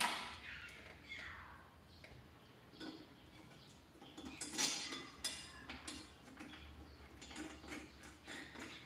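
Metal hoop and tension rods of a 12-inch drum tom being handled and fitted to the lugs while a new Remo head is installed: scattered light metallic clicks and scrapes, loudest about halfway.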